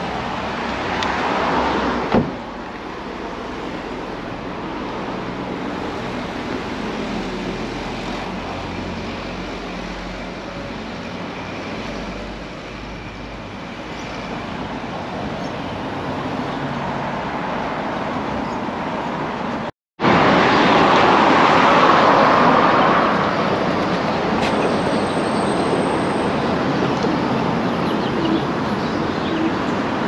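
Night-time city street traffic: a steady rush of passing cars and road noise. One thump sounds about two seconds in, and the noise drops out for a moment about two-thirds of the way through, then returns louder.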